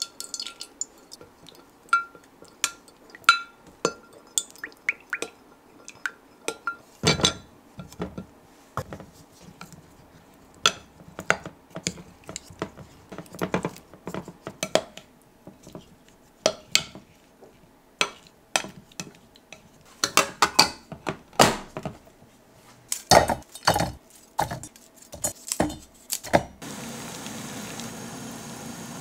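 A metal spoon clinking and scraping against a glass dish as halved cherry tomatoes are tossed in dressing, in irregular taps. Near the end this gives way to the steady hiss of water boiling in a saucepan of broccoli.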